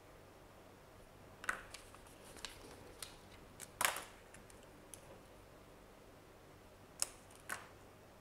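Pen drawing on a sheet of paper: a scattering of short scratches and sharp taps of the pen tip, the loudest about four seconds in and again about seven seconds in.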